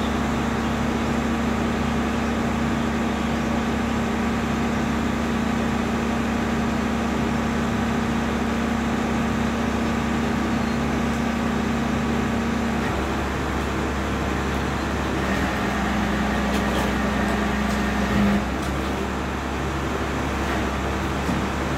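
Rear-loader garbage compactor truck's diesel engine running while the truck stands, a steady drone with a humming tone. The hum drops away about 13 seconds in and comes back slightly lower from about 15 to 18 seconds, ending in a short bump. A few knocks follow near the end.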